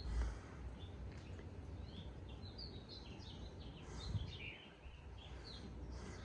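Small birds chirping and twittering in short, scattered calls over a low, steady hum, with a soft low thump near the start and another about four seconds in. The hum is from a Casablanca San Marino ceiling fan running slowly on speed 2, held back by a bad capacitor.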